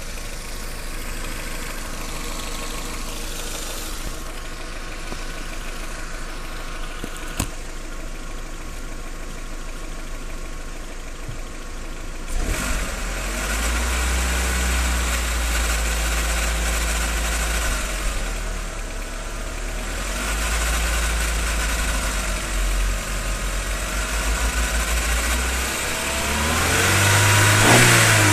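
1.8T turbocharged inline-four engine running warm: idling steadily, then held at raised revs from about twelve seconds in, with a brief rev that rises and falls near the end. Under it there is a rustling rattle from beneath the valve cover, heard only when the engine is warm at about 1300–1800 rpm, which is the sign of a failing camshaft chain tensioner.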